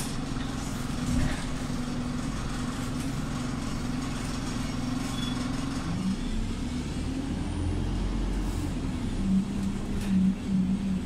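Interior of a single-deck bus on the move: steady engine drone and road rumble, which grows louder in uneven pulses near the end.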